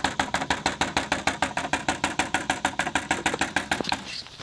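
Automatic chicken coop door's motor-driven gear clicking rapidly, about ten clicks a second, then stopping about four seconds in. The cogs are skipping over the holes in the door's slide instead of lifting it, because the gear doesn't reach far enough through them.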